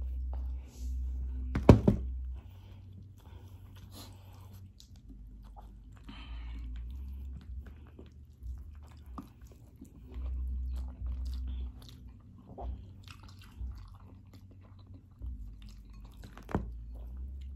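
Close-up chewing and biting of food eaten with the hands, with small smacking clicks and low thuds, and one loud sharp knock about two seconds in.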